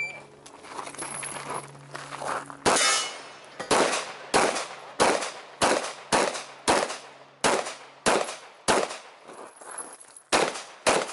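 A pistol firing a rapid string of about a dozen sharp shots, starting a few seconds in, spaced about half a second to a second apart with a short pause near the end, during a timed practical-pistol stage.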